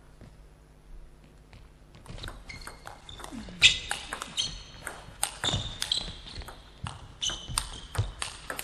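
Table tennis rally: after a quiet moment before the serve, the ball clicks in quick alternation off the paddles and the table for several seconds, with brief high squeaks from players' shoes on the court floor.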